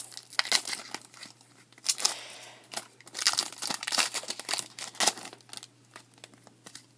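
Wrapper of a baseball trading-card pack being torn open and crinkled by hand: a run of sharp crackles, denser about two seconds in.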